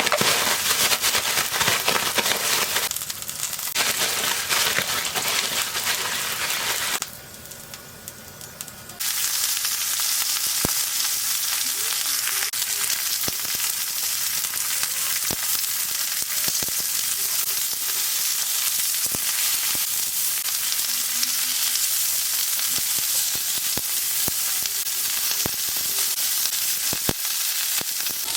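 Food sizzling in an oiled frying pan: a steady hiss with scattered sharp pops. It is fuller for the first several seconds, drops away briefly about seven seconds in, then settles into even sizzling.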